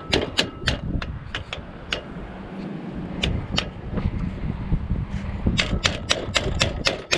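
Sharp metal clicks and taps from work on a broken jet ski trailer winch. They come scattered at first, then fall into a regular run of about three a second near the end.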